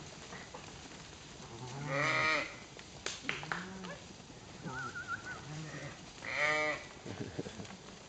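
A flock of dairy sheep bleating: two loud, quavering bleats, one about two seconds in and one past six seconds, with several shorter, quieter bleats in between.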